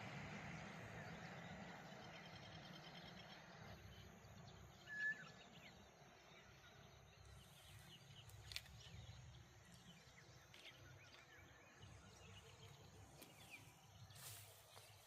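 Faint outdoor morning ambience. The noise of a passing vehicle fades away over the first few seconds, then sparse faint bird chirps follow, with one short, clear high note about five seconds in.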